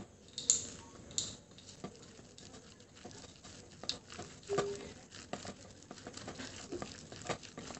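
A hand mixing thick ground urad dal batter with chopped onion, herbs and chillies in a steel bowl: quiet, irregular soft pats and clicks.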